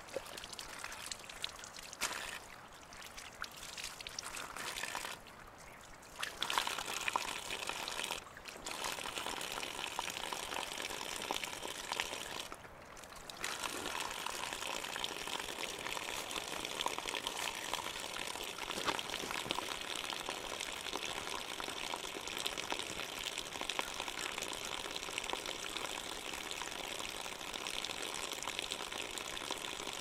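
Spring water pouring in a thin stream from a wooden log spout and splashing onto the ground below. In the first half hands are rubbed in the stream, so the splashing comes and goes unevenly with a few short lulls; from about halfway through the pour runs steady.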